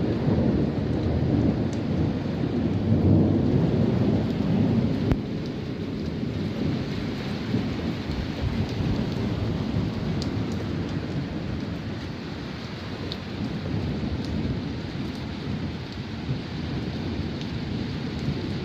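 Steady rainfall with scattered drops ticking, over a low rumble that swells over the first five seconds and then settles.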